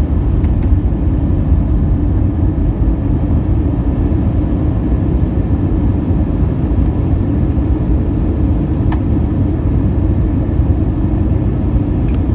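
Airbus A319 cabin noise heard from a window seat over the wing during descent: a steady, deep rush of jet engine and airflow noise with faint steady tones above it, and a small click about nine seconds in.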